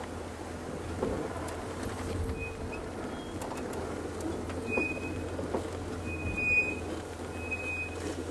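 Safari game-drive vehicle driving, its engine a steady low hum, with knocks and clatters. From about halfway in, a high squeal recurs several times: a horrible sound.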